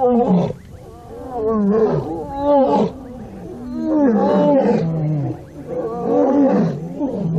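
Lioness roaring: a bout of repeated deep calls, roughly one a second, each falling in pitch. It is a territorial roar, proclaiming the pride's ownership of its ground.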